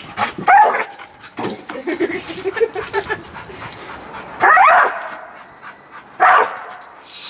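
Blue-nose pit bull giving loud, high yelping cries up at a balloon, three of them, about half a second, four and a half and six seconds in, with a lower wavering whine between the first two.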